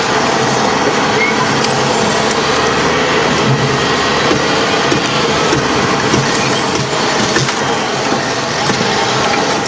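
LAV III armoured vehicle's diesel engine running steadily, heard from inside the hull as a constant loud drone.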